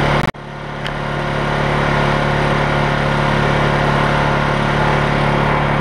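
Honda EU20i inverter generator's single-cylinder four-stroke engine running steadily on LPG through a gas conversion kit, a steady hum. About a third of a second in there is a click, and the sound drops out briefly, then comes back over about a second.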